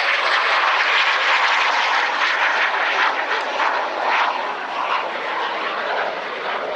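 Temco Super Pinto jet trainer's General Electric J85 turbojet running at high power in a low pass, a loud steady rushing jet noise that eases slightly about five seconds in as the jet climbs away.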